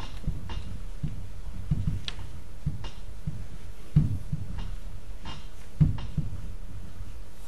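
Marker writing on a whiteboard: short, irregular strokes and taps, a few with low thumps against the board, the strongest about four and six seconds in, over a steady low hum.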